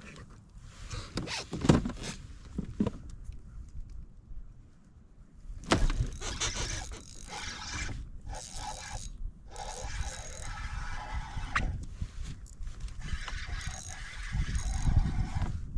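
Handled gear clicking, scraping and rattling: a sharp click about two seconds in, then busier scraping and rattling from about six seconds on.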